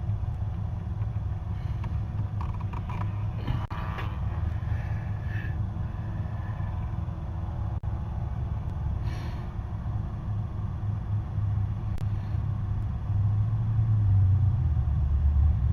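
Low steady rumble of the Jeep Grand Cherokee running, growing a little louder near the end, while a newly plugged-in HVAC blend door actuator slowly turns its shaft toward horizontal, a sign that the actuator is getting power and works. A few light clicks sound along the way.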